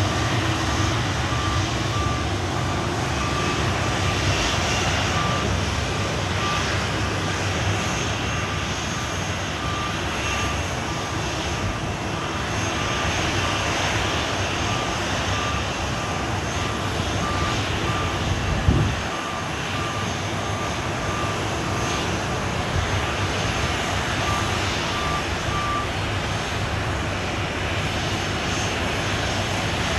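Boeing 737 jet engines running with a steady, even noise and a strong low rumble. A faint short beep repeats through most of it and stops a few seconds before the end, and a single thump comes about two-thirds of the way in.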